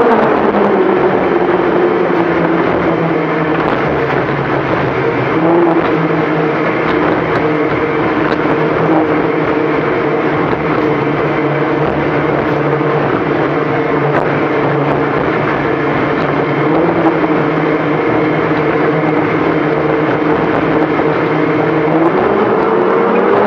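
Engines of an XCat offshore racing catamaran running at speed: a loud, steady drone over a rushing noise, the pitch dipping slightly a couple of times and rising near the end.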